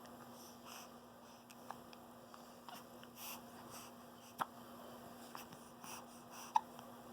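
Newborn baby hiccuping: two short, sharp hics about two seconds apart in the second half, with soft breathing sounds between them.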